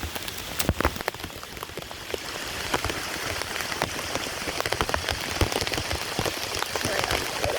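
Steady rain falling, with many sharp, irregular drop taps close by.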